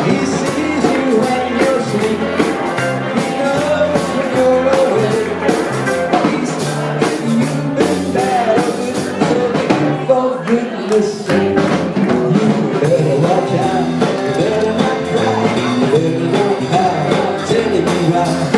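Rock and roll band playing a song with a singer, guitar and a steady drum beat.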